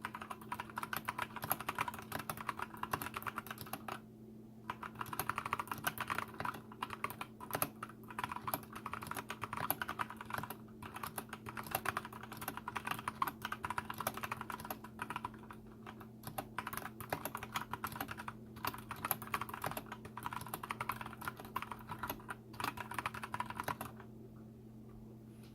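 Fast typing on a mechanical keyboard with lubed Kailh BOX heavy Burnt Orange switches: a quick, continuous patter of keystrokes with a few brief pauses, stopping shortly before the end. A steady low hum runs underneath.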